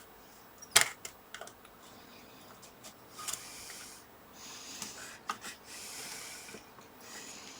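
Small tools clicking and tapping on a circuit board during desoldering, with one sharp click about a second in and a few lighter clicks after it. In the second half there are four short hisses, each under a second long.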